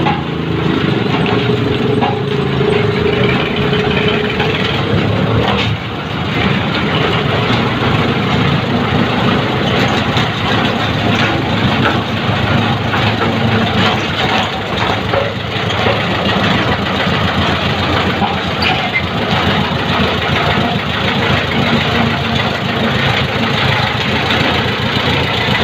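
Road roller's engine running steadily, with a thin whine over it for about the first six seconds that cuts off suddenly.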